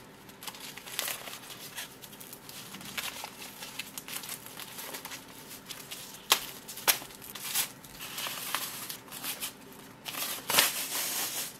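Packaging wrap crinkling and rustling as it is pulled off a bag strap, with a few sharp crackles in the second half.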